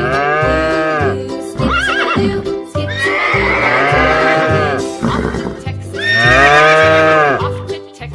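Upbeat background music with a steady beat about twice a second, with three long rising-and-falling animal-like calls laid over it.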